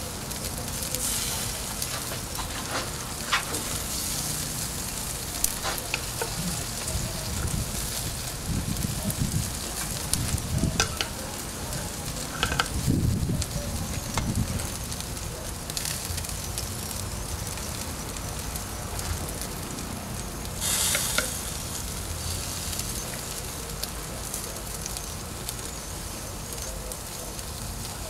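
Sauced pork ribs sizzling on a hot grill grate: a steady crackling hiss with scattered sharp pops. A few low rumbles come partway through.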